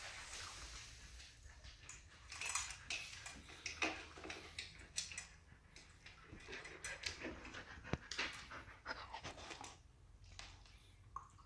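Siberian husky puppy panting with its head down at its stainless steel bowls, with irregular clicks and scrapes at the bowls.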